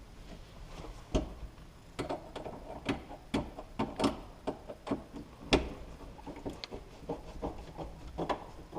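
Irregular clicks and knocks of a hand tool and door-pull hardware against a door as a pull handle is fastened on, about a dozen taps with the sharpest about a second in and past the middle.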